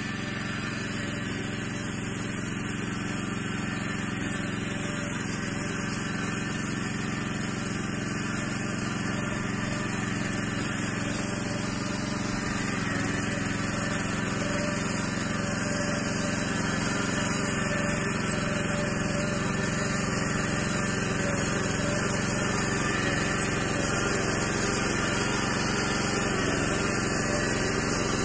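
Yağmur YET 300 two-wheel walking tractor's engine running steadily at a constant speed, slowly growing louder.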